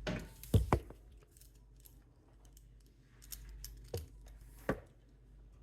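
Small metal tweezers clicking and clinking against a toaster while toast is pried out: two sharp clicks close together near the start, then quiet handling, then two more clicks about four seconds in.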